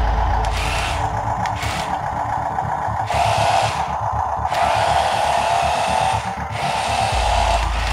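Electric drive motors and plastic gearing of a brick-built RC tank whirring as it drives, a steady whine that grows stronger about three seconds in. A low rumble fades just after the start and comes back near the end.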